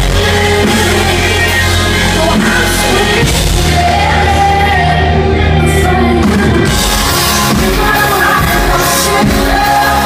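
Live rock band playing, with a singer's voice over sustained bass, drums and keys, recorded loud from the audience in a large hall. The high end thins out for a couple of seconds midway, then comes back in.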